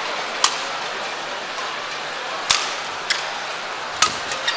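Badminton rackets striking a shuttlecock during a rally: several sharp hits, the first ones about two seconds apart and coming faster near the end, over the steady noise of an arena crowd.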